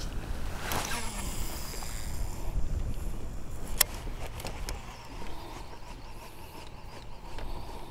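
Wind on the microphone over open water while a fishing lure is cast from the boat and reeled back: a swish of the cast about a second in, and a sharp click near four seconds.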